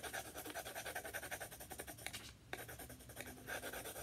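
Pencil shading on a sheet of paper: quick back-and-forth scratching strokes, with a short pause about halfway through.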